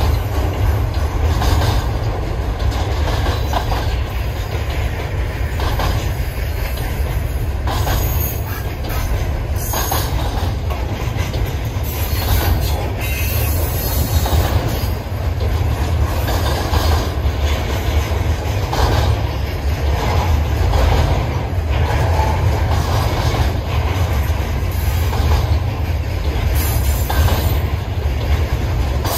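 Double-stack container train of well cars rolling past at close range: a steady low rumble, with wheels clacking over rail joints and brief high wheel squeals now and then.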